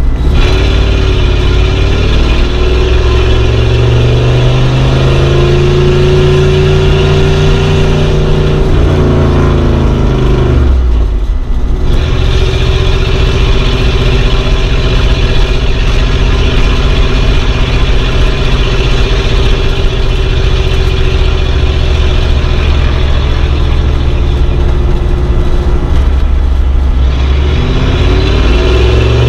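Old car's engine running under way: its note climbs over the first several seconds, breaks off briefly about eleven seconds in, then holds steady before falling away near the end.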